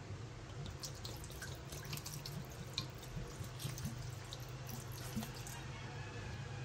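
Spiced tuba vinegar poured from a bottle onto milkfish in a stainless steel pan, splashing and pattering from about a second in until it tapers off near the end. A low steady hum runs underneath.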